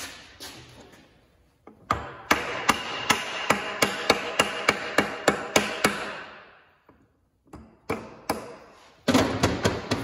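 Hammer blows driving the Hendey lathe's spindle out of its headstock: a run of about a dozen strikes at about three a second with a metallic ring, a pause, then a few more blows near the end.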